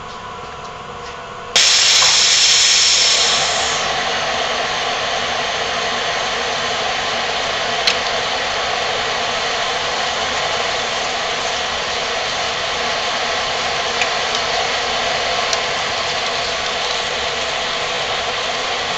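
AutoDrill 5100 air-powered self-feeding drill starting up about a second and a half in, loud at first, then running steadily as a large Hougen annular cutter bores through 3/4-inch steel plate. A few sharp ticks can be heard through it.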